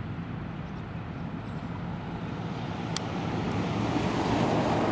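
Road traffic: a motor vehicle running, growing louder toward the end as it draws near, with a single sharp click about three seconds in.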